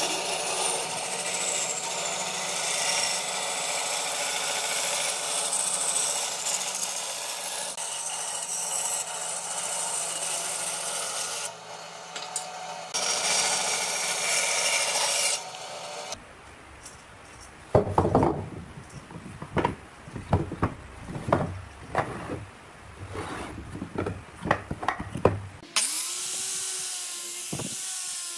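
Band saw cutting through thick wooden blocks, a steady noisy cut with short pauses, for roughly the first half. This gives way to a series of separate sharp knocks. Near the end an angle grinder with a sanding disc starts sanding the wood, its motor pitch wavering slightly.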